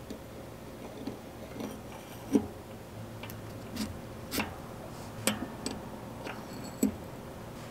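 Steel cassette cogs and spacers being fitted by hand onto a rear hub's freehub body: irregular light metallic clicks and clinks, about a dozen, the sharpest one about two and a half seconds in.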